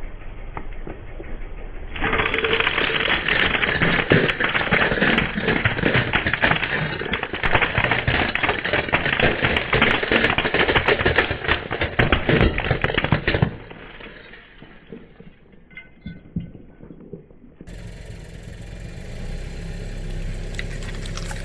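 Christmas decorations being crushed under a car's tyres: a dense, loud crackling and crunching full of sharp snaps that thins out to a few scattered cracks about two-thirds of the way in. Near the end it gives way to a steady low hum.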